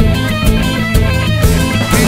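Instrumental stretch of a rock song: electric guitar over a steady drum beat, with no vocals.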